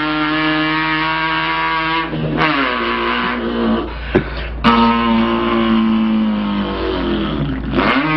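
Vocal imitation of a car engine made with the mouth: a held, buzzing engine note that drops in pitch about two seconds in like a gear change, two sharp clicks around the middle, then another held note that sweeps down near the end.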